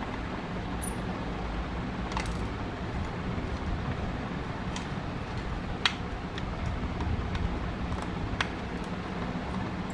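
A few sharp, light clicks of a small tool working on a smartwatch case, over a steady low background rumble.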